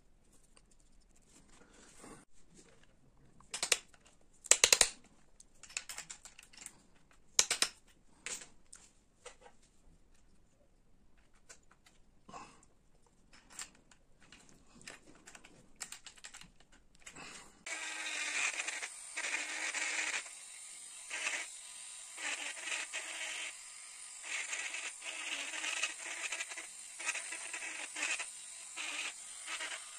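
Sharp clicks and knocks of metal carving tools and a rotary-tool handpiece being handled, a few of them loud. About eighteen seconds in, a handheld rotary tool starts and runs with a bur cutting linden wood, its grinding rising and falling as the bur bites in and eases off.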